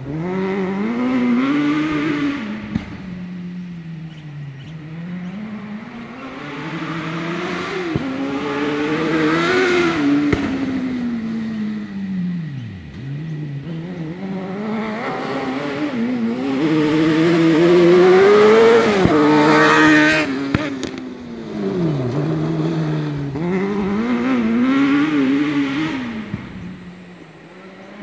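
Dune buggy powered by a Suzuki GSX-R750 inline-four motorcycle engine, revving high with the pitch rising and falling again and again as the throttle is worked. Loudest about two-thirds of the way through, then fading away near the end.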